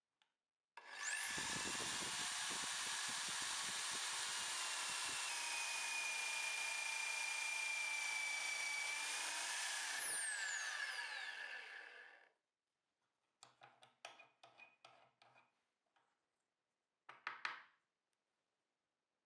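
Electric drill spinning up with a rising whine and running while it bores into wood for about nine seconds, then winding down with a falling whine. A string of light clicks and rattles and one short scrape follow.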